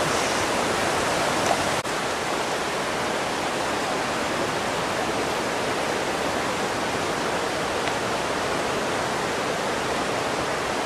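Steady rushing of flowing water, an even hiss with no change. A single click about two seconds in.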